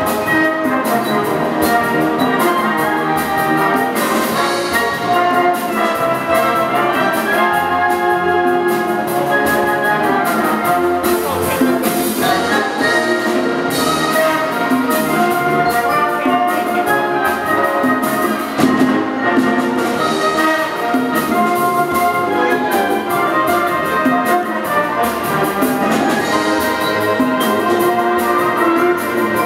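A youth wind band playing live, with brass and many sustained notes over steady percussion hits.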